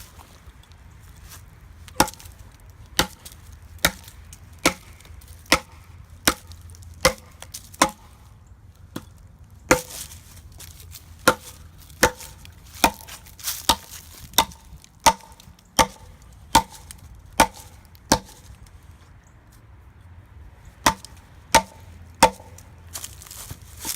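A 4140-steel tomahawk chopping into wood in a steady series of sharp strikes, a little more than one a second. The strikes pause for a few seconds near the end, then start again.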